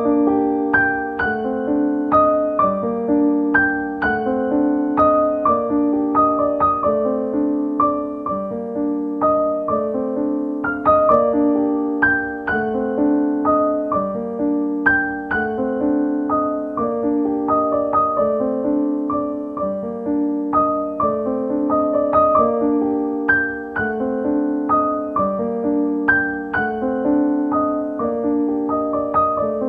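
Solo piano music: a steady repeating figure of lower notes with a melody played above it.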